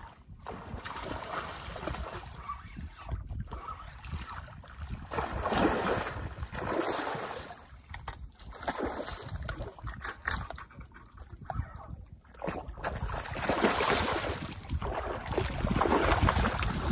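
Hooked giant snakehead thrashing at the surface while being played on rod and line: repeated surges of splashing and sloshing water, loudest near the end.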